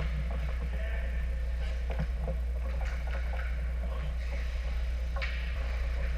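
Hockey skate blades scraping and swishing on rink ice, with a few sharp knocks, over a steady low hum.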